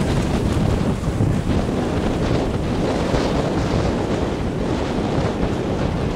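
Wind buffeting the microphone: a steady, rumbling rush with no clear boat motor note above it.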